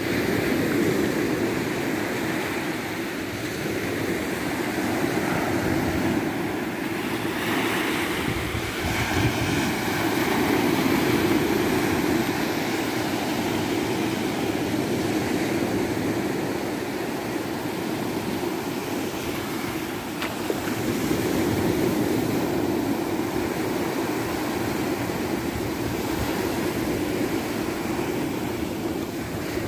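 Small sea waves breaking and washing up a sandy shore: a steady surf wash that swells and ebbs slowly.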